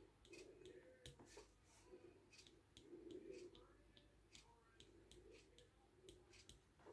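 Near silence, with faint irregular ticks and scratches, two or three a second, from the tip of a wood-burning pen moving over the wood.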